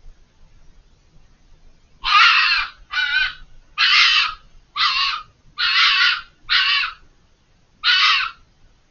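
Fox screaming: seven short screams in a row, each about half a second long, starting about two seconds in with brief gaps between them.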